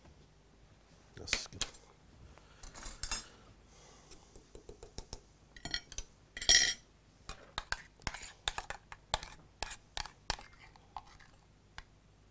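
Metal utensils clinking and knocking against a stainless-steel saucepan and china plates while a dish is plated: a string of irregular sharp clinks, the loudest about six and a half seconds in.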